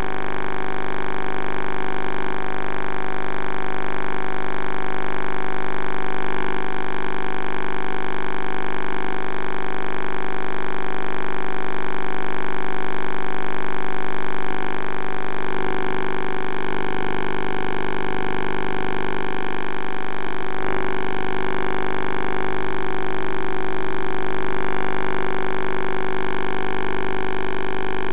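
Steady electrical hum and buzz over a constant hiss, made of many fixed tones that hold at an even level without a break.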